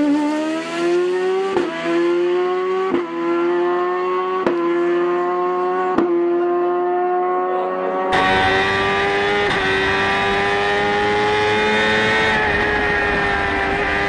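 BMW S1000RR inline-four motorcycle engine in a Fiat 500 hillclimb prototype screaming at very high revs, upshifting four times about a second and a half apart, each shift a short sharp break with the pitch climbing again in the next gear. About eight seconds in the sound cuts to another recording of the engine held high, its pitch climbing slowly, with more road and wind noise underneath.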